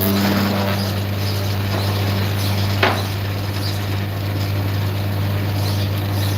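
A workshop machine's motor humming steadily, with a single sharp knock a little before the middle.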